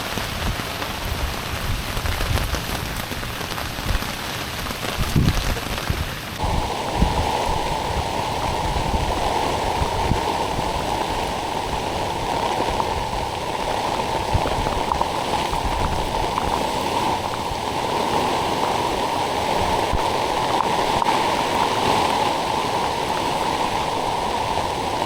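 Steady heavy rain mixed with rushing water, an even hiss with a few small knocks. About six seconds in it changes abruptly to a denser, lower rush.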